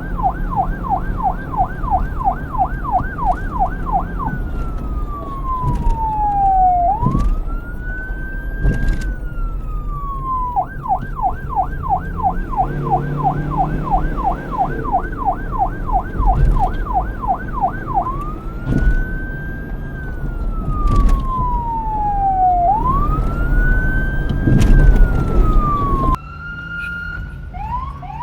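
Police car electronic siren switching between a fast yelp, about four pitch cycles a second, and a slower wail that rises and falls over two to three seconds, over a low vehicle and street rumble. Near the end it cuts abruptly to a quieter, different siren rising in short sweeps.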